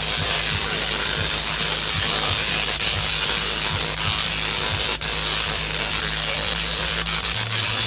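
Tesla coils discharging long lightning arcs, a loud continuous buzzing crackle of sparks carrying a steady low note that drops to a lower note near the end, with one sharper crack about five seconds in.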